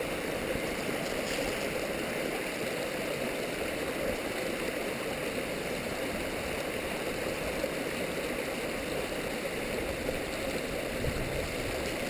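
A shallow stream running and gurgling over rocks, a steady unbroken rush of water.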